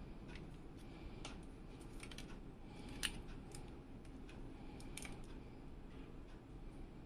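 Scattered small clicks and taps of a graphics card being handled in the hands, fingers against its metal I/O bracket and card body, with one sharper click about three seconds in.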